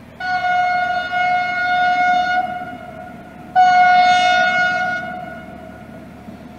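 A horn sounds two long, steady single-pitched blasts, the first about two seconds long, the second starting about a second later, shorter and ringing out as it fades. A steady low rumble runs underneath.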